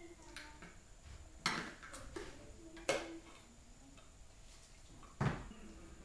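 Small metal paint tins and a tin lid being handled on a workbench: three sharp clanks with a short ring, the last, about five seconds in, the loudest and deepest, with a few fainter clicks between.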